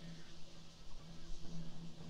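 Temple-grounds ambience: a low wavering hum and a faint high hiss, with a low rumble in the middle.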